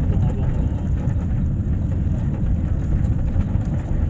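Steady low rumble inside an airliner's passenger cabin just after landing, the engines and the wheels on the ground running together as one even noise.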